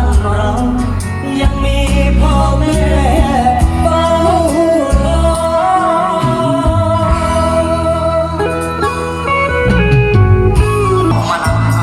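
Music with a solo singer over a heavy bass beat.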